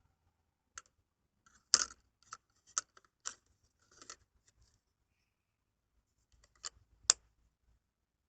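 Small plastic capsule-toy microwave being handled: a series of sharp plastic clicks and taps, loudest about two seconds in and again near the end, with no beep.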